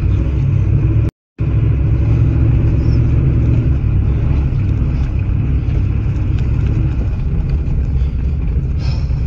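Mud truck's engine running while the truck drives, heard from inside the cab as a loud, steady low rumble. The sound drops out completely for a moment about a second in.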